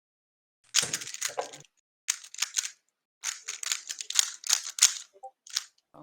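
A 3x3 speedcube being turned rapidly during a solve: quick runs of plastic clicking and clacking in bursts, with brief pauses between them.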